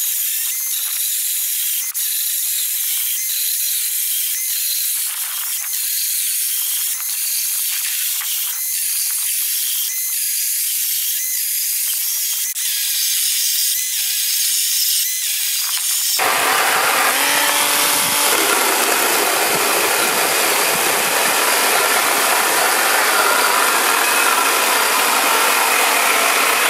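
Parkside PKSA 20-Li B2 cordless 20 V chainsaw cutting through a 170 × 65 mm timber beam: a steady hissing rasp of the chain in the wood. About 16 seconds in, the sound abruptly becomes fuller and louder, with the electric motor's whine under the cutting.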